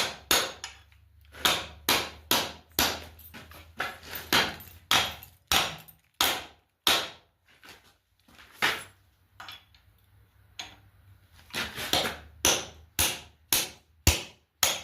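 Hammer tapping a wedge into a post vise's mounting, against the retainer plate. The strikes are light, not full blows, because the vise parts are brittle cast iron. The sharp ringing taps come in quick runs of a few a second, with a sparser gap of a few seconds in the middle.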